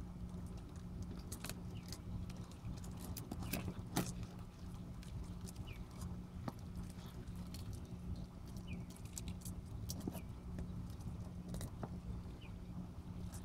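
Eastern box turtles biting and tearing at a dead brown rat: scattered sharp clicks and crunches of beaks on the carcass, the loudest about four seconds in.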